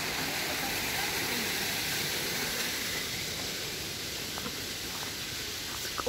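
Steady rushing hiss of outdoor noise, a little louder in the first half and easing off after about three seconds, with a few faint clicks near the end.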